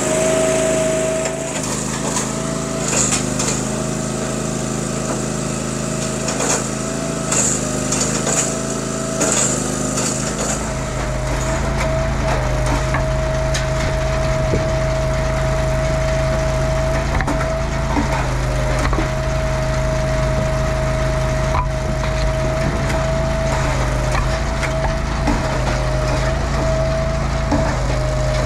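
A firewood splitter and its conveyor running steadily, an engine hum whose pitch sags briefly every few seconds, with split wood clattering and knocking as it is split and carried up the conveyor.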